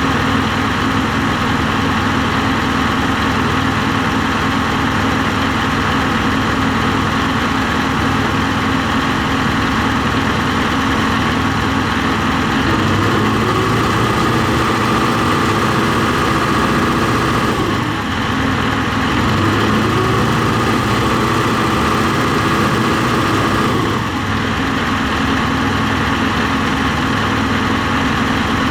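John Deere 245G excavator diesel engine running, with its note shifting twice in the second half as the revs are raised. The mechanic feels it is not running on all cylinders.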